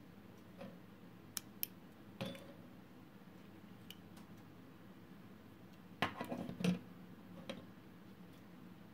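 Small sharp clicks from the hinged metal SIM card holder on a SIM900 GSM shield being unlatched and opened and the SIM card taken out, twice about a second and a half in, then a louder cluster of knocks and rattles about six seconds in as the circuit board is handled.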